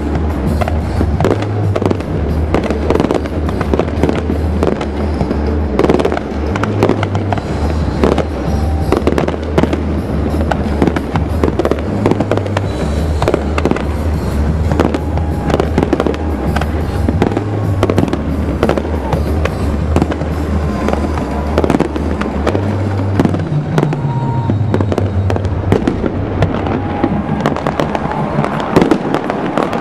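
Fireworks display: a dense, continuous string of bangs and crackling from aerial shells and rockets. Underneath runs loud music with long low bass notes that shift every second or two.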